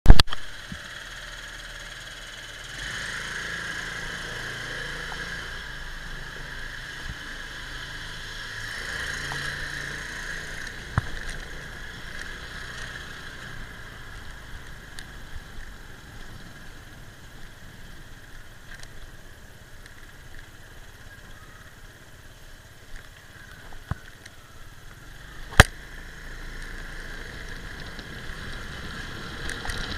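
Motorbike engine running at low speed as it pulls away and rides slowly, its pitch stepping up and down, with wind and road noise, heard from a handlebar-mounted camera. A loud click at the very start and a few sharp knocks, the loudest near the end.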